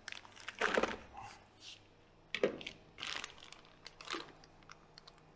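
Clear plastic piping bag crinkling and a spatula scraping thick fruit paste from a stainless-steel food-processor bowl into the bag, in a few short, irregular rustles and scrapes.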